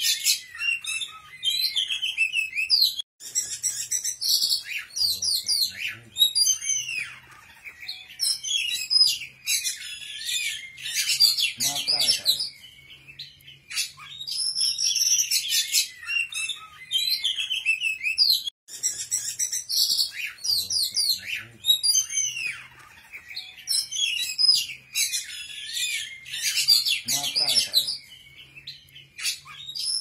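Songbird singing rapid, varied chirps and high trills in phrases a few seconds long with short pauses between them. It is a looped bird-song training recording, and the same stretch repeats about every fourteen or fifteen seconds.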